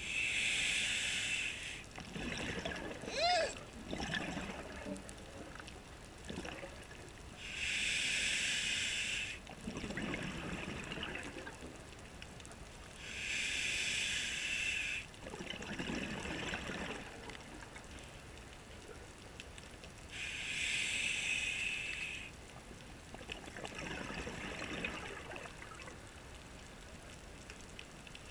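Scuba diver breathing through a regulator underwater: four loud bursts of exhaled bubbles, each about two seconds long, coming about every six to seven seconds, with quieter inhalations through the regulator in between.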